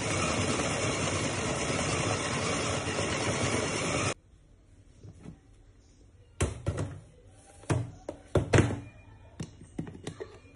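Electric food processor's motor running at full speed with its blade mincing food, then cutting off suddenly about four seconds in. Several knocks and clunks follow as the motor head and plastic lid are handled.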